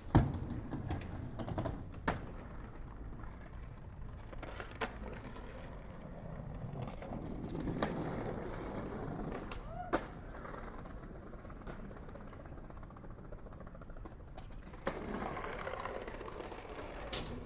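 Skateboard wheels rolling on pavement, a steady rumble that swells twice, with a few sharp clacks of the board; the loudest clack comes right at the start and another about ten seconds in.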